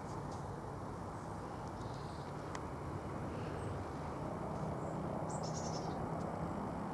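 A steady low background rumble with a few faint high bird chirps, the clearest a quick run of high notes about five seconds in.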